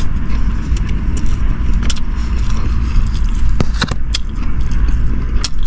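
Steady low rumble inside a vehicle, with a few sharp clicks and rattles.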